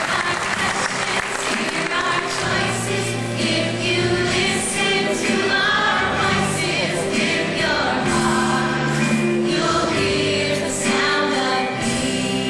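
A choir singing with instrumental accompaniment in a live performance. Applause dies away in the first couple of seconds as the singing takes over.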